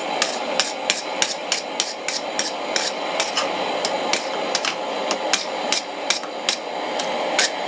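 Wire brush scrubbing a freshly forged steel J-hook: quick, regular back-and-forth scraping strokes at about four a second, cleaning scale off the metal.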